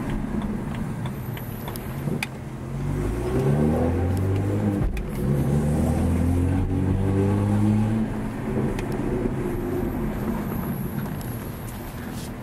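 BMW 335i's turbocharged straight-six, with a 335is exhaust and aftermarket AA downpipes, heard from inside the cabin under hard acceleration. The revs climb from about two seconds in, break briefly at an upshift near five seconds, and climb again through the next gear. The engine then backs off to a lower, steady drone at about eight seconds.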